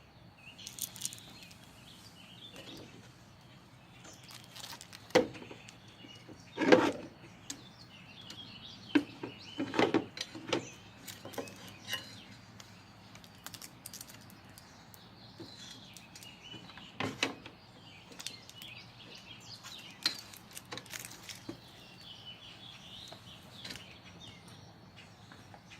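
Scattered metallic clicks, knocks and clatter of hand tools and parts being handled during headlight installation on a Jeep XJ, with birds chirping in the background.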